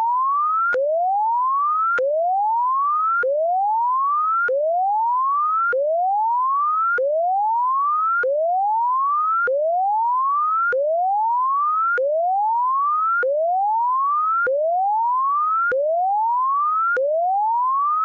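Electronic alert siren tone: a single pure note that sweeps upward over about a second and a quarter, then drops back abruptly with a click and starts again, repeating evenly.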